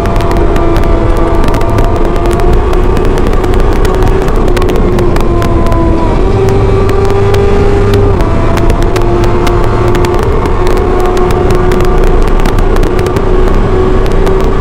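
Motorcycle engine running steadily at cruising revs, its pitch stepping up slightly about six seconds in and dropping back about two seconds later.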